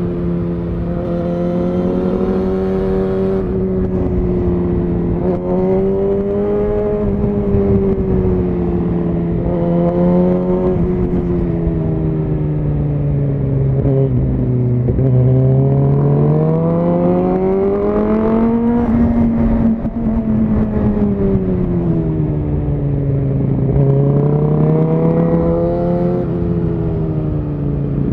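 Suzuki GSX-R1000R's inline-four engine through a Yoshimura R-11 SQ exhaust, heard from on board while riding. The engine note rises and falls smoothly several times as the throttle is rolled on and off, and reaches its highest pitch about two-thirds of the way through.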